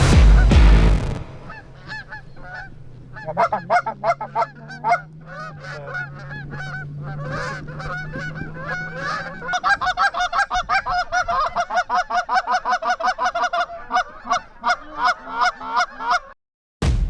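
Canada geese honking: scattered calls at first, building into a fast, overlapping run of honks that cuts off abruptly near the end. A brief bit of music plays at the very start.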